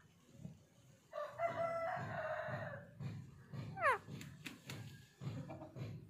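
A long, held, rooster-like crowing call lasting about two seconds, starting about a second in. It is followed near the four-second mark by a quick run of short falling chirps.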